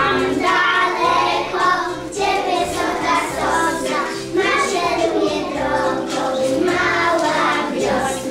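Young children singing a song together over instrumental accompaniment.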